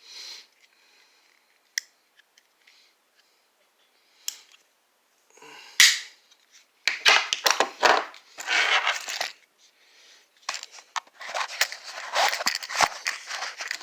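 A metal multi-tool and its accessories being handled and packed into a vinyl pouch. There are a few sharp clicks and knocks, one loud one about six seconds in, then long stretches of rustling and scraping as the vinyl pouch is worked closed.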